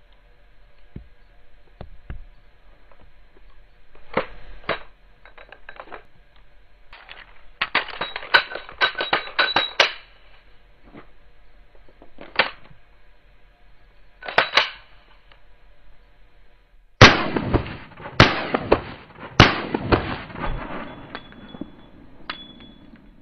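Handgun being handled, with scattered sharp metallic clicks and clatters, then three loud pistol shots about a second apart, followed by a few quieter reports.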